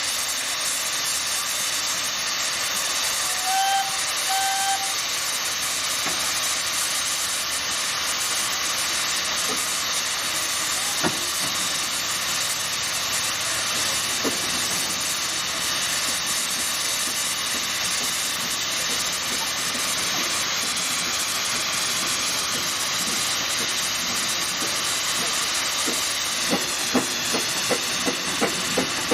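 Fowler steam ploughing engine hissing steadily with escaping steam, with two brief high tones about three and a half seconds in. Near the end the engine begins to run, its motion giving a regular beat of two to three knocks a second.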